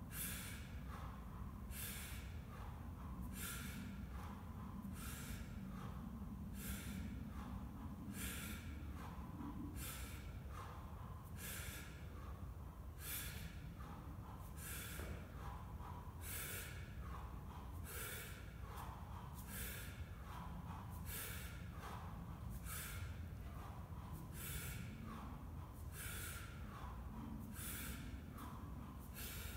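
A man's sharp, forceful breaths repeating about once every one and a half seconds, in time with each rep of heavy one-arm kettlebell swings. A low steady hum lies underneath.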